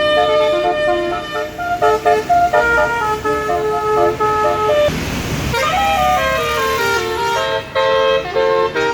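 Bus 'basuri' telolet air horn playing a melody of short stepping notes. About five seconds in there is a brief rush of noise, and the horn then slides down in pitch before the notes resume.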